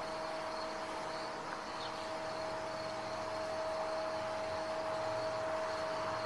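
A steady background hum at one constant pitch, with a faint high trill of crickets chirping behind it.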